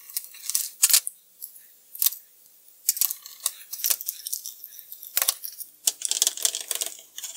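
Scattered sharp clicks and light rattles of the Pyra handheld's hard case parts being handled, pressed together and fitted, with a thin stylus pushed into the unit.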